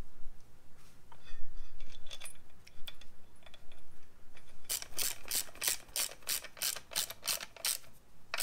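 Socket ratchet clicking in quick even strokes, about four a second, for a few seconds past the middle, as a brake caliper mounting bolt is run in. Before that come a few scattered light metal clicks as the caliper is handled into place.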